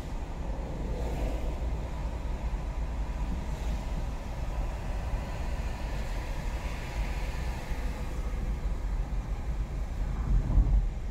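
Road noise heard from inside a moving car: a steady low rumble of tyres and engine, swelling a little near the end.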